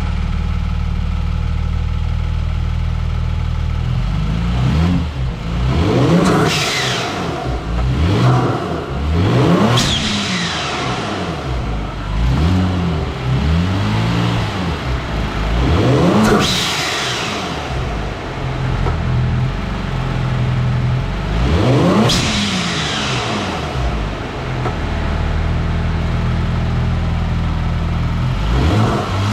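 Kia Stinger engine, fitted with GFB 9012 blow-off valves with whistling trumpets, idling steadily, then blipped repeatedly from about four seconds in. After each rev the blow-off valves vent with a whooshing hiss that falls away as the revs drop back.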